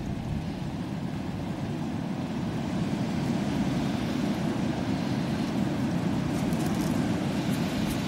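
Strong wind buffeting the camera's microphone: a steady low rumble of noise, a little louder from about three seconds in.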